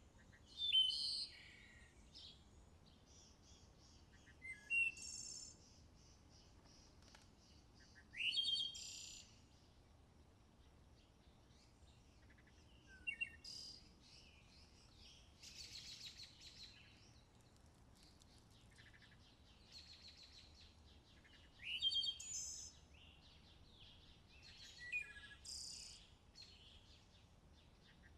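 Songbirds singing faintly in short, high-pitched phrases every few seconds, some with quick rising notes.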